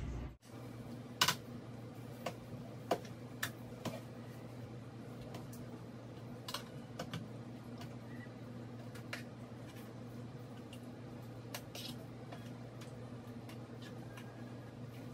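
Scattered light clicks and taps of a fork against a bowl and plate as raw tilapia fillets are dipped in egg and moved about, over a low steady hum.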